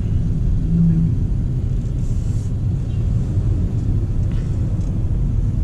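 Steady low road and drivetrain rumble inside the cabin of a Honda City e:HEV hybrid sedan driving in town traffic, with a brief low steady tone about a second in.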